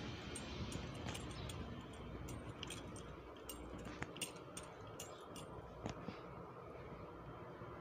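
Scattered light clicks and clinks as someone walks, from footsteps and small handling noises, over a low steady hiss. The clicks thin out after about six seconds.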